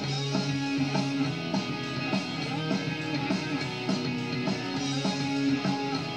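Background rock music led by guitar.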